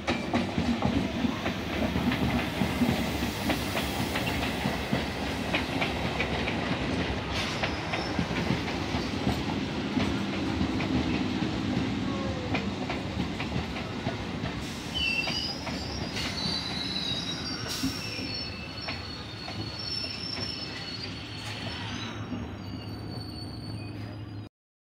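Electric multiple unit (EMU) local train running into a station and slowing, its wheels clicking over rail joints. In the second half come high-pitched squeals as it brakes. The sound cuts off suddenly near the end.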